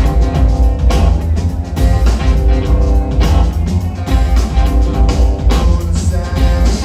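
Live rock band playing an instrumental stretch of a song, with a heavy, deep bass line under a steady beat.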